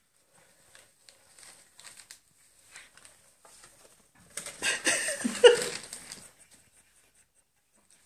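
A paper bag rustling and crinkling as a cat moves about with its head inside it. Soft scattered rustles at first, then about two seconds of loud crinkling in the middle as the bag is shaken and tossed.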